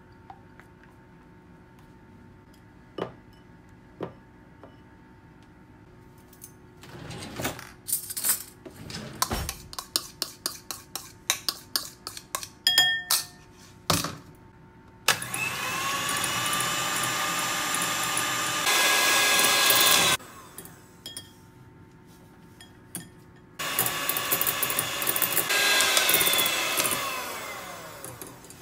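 Electric hand mixer whipping egg whites into meringue in a glass bowl, running in two spells: the first steps up in speed shortly before it stops, and the second winds down in pitch near the end. Before the mixer starts there is a quick run of clicks and taps.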